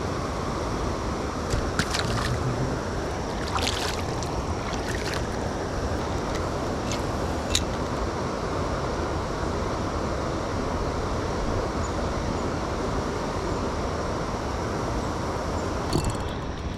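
Steady rush of flowing river water, with a few short clicks and taps in the first half.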